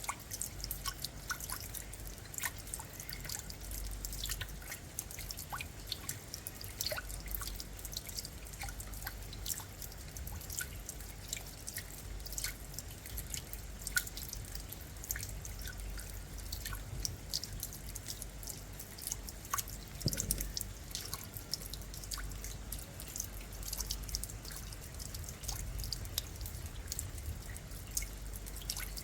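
Rain falling, heard mostly as close, irregular drops dripping onto surfaces over a steady low rumble.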